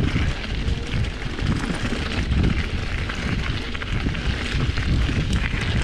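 Wind buffeting the microphone while a mountain bike rides fast over a dirt-and-gravel track, its tyres crunching and rattling on the loose surface with a few sharp clicks.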